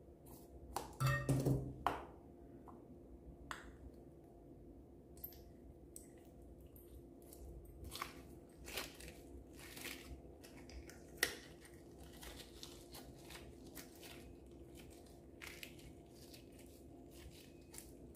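Scissors snipping into a slime-filled rubber balloon, loudest about a second in, then the balloon skin peeled away and the slime squeezed by hand, giving a string of small sticky clicks and crackles.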